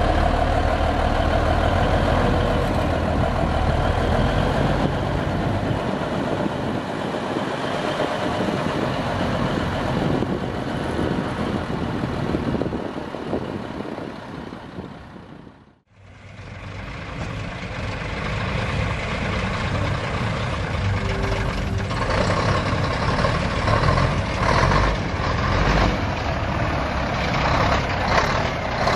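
Heavy truck engines running: a vintage red tractor unit's engine as it drives across the grass, fading out about halfway through. After a cut, a red Mack tractor's engine runs.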